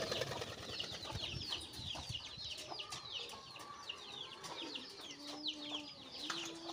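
Birds chirping rapidly and without pause, a stream of short, high, downward-sweeping chirps several to the second, with two brief low calls about five and six seconds in.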